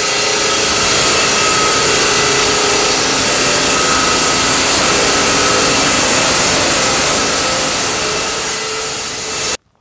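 Steinadler masonry saw cutting through a fossil rudist rock sample: a loud, steady saw noise with a faint hum, cutting off suddenly near the end.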